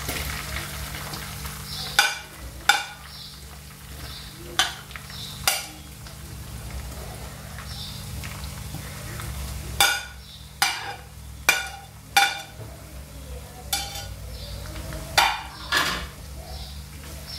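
Grated coconut, green chillies, curry leaves and onion frying in hot oil while being stirred, the stirring utensil knocking sharply against the pan about a dozen times, often in quick pairs.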